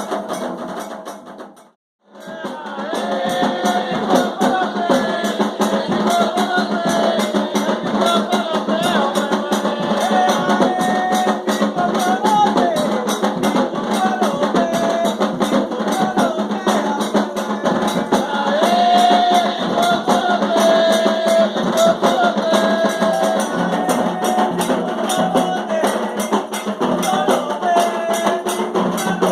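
Candomblé ritual music: voices singing a chant over drums and percussion. The sound cuts out briefly near the start, then the drumming and singing resume and carry on steadily.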